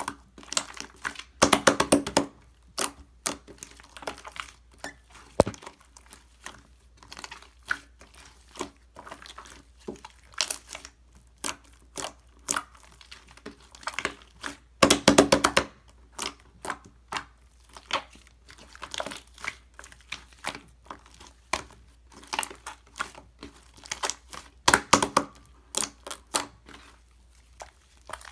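Slime being pressed, squeezed and stretched, giving irregular clicking and crackling air-bubble pops. The crackling comes in three louder, denser bursts: about two seconds in, in the middle, and near the end.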